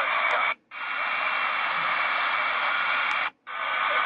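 Shortwave static and hiss from the HanRongDa HRD-747 receiver's speaker while it steps through memory channels around 9.9 to 10 MHz. The audio mutes briefly twice as the channel changes, each time just after a faint high tick.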